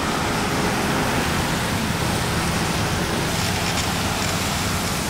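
Steady outdoor rushing noise with no distinct events: the general din of a roadside scene.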